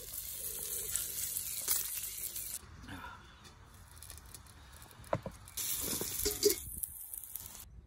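Bacon rashers sizzling on a portable gas griddle: a steady hiss for the first couple of seconds, quieter for a few seconds, then back again near the end, with a few light knocks in between.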